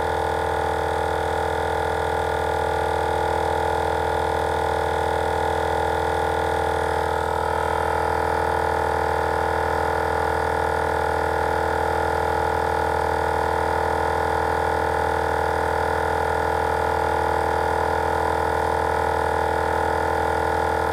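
Kobalt garage air compressor running steadily after switching on to refill its tank, with the Wolfbox portable compressor running alongside as both inflate tires: a loud, even motor hum.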